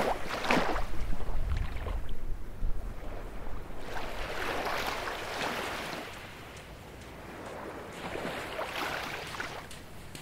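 Baltic Sea waves breaking and washing up a beach, three surges about four seconds apart. Wind rumbles on the microphone during the first surge.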